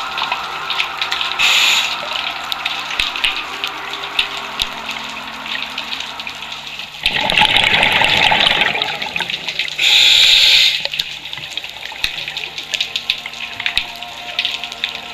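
Underwater scuba regulator breathing: a loud rush of exhaled bubbles lasting about two seconds, about seven seconds in, then a short higher hiss about ten seconds in. Faint crackling clicks of the water run underneath.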